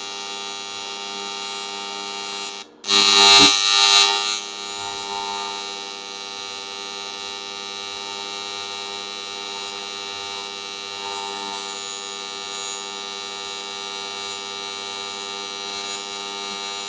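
TIG welding arc on aluminum, buzzing steadily. About three seconds in it cuts out for an instant and returns as a louder crackling burst for a second or so, then settles back into the even buzz.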